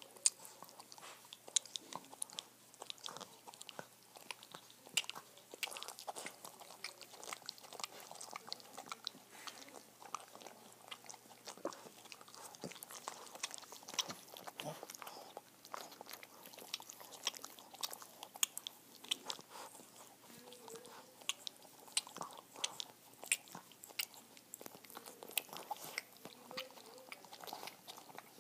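Two Boston terriers licking each other's muzzles close to the microphone: a steady, irregular run of small wet licks and lip smacks.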